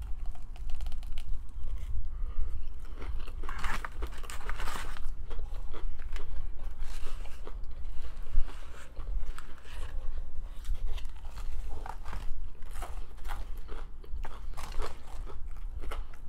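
Close-miked chewing and biting of crunchy fried chicken: irregular crunches and mouth sounds.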